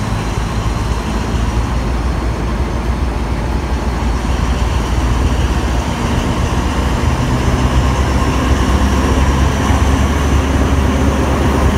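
Diesel locomotive engine running with a steady low rumble as the train rolls slowly past, getting louder over the last several seconds as the locomotive draws level.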